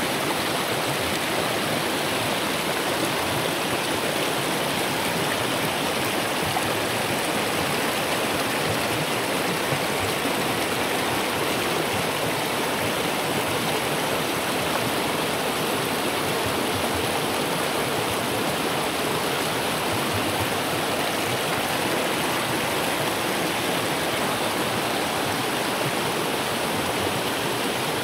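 River water rushing over rocks in shallow rapids, a steady, unbroken rush.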